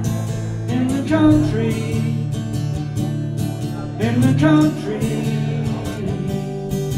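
Acoustic guitar strummed steadily, with a man's singing voice coming in briefly about a second in and again about four seconds in.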